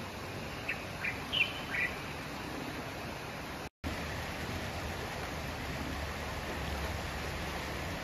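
Steady rush of a fast-flowing, swollen river, with a few short bird chirps about a second in. The sound drops out for an instant just before halfway and comes back with more low rumble.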